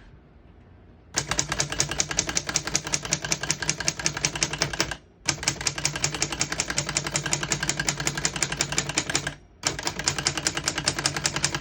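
Keys of a 1929 Corona Four manual portable typewriter being typed in a fast, even run of about eight strikes a second. The run starts about a second in and breaks off briefly twice.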